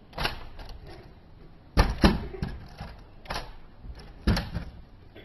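1/25-scale plastic model 1975 Cutlass lowrider hopping on a table, its body and wheels knocking down in a string of sharp, irregular clacks. The loudest pair comes a little under two seconds in, with single knocks at about three and a half and four and a half seconds.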